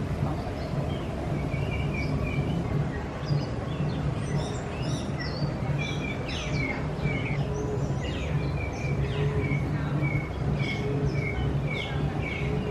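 Many birds chirping and calling at once: short repeated chirps and quick trills, some falling in pitch, over a steady low hum.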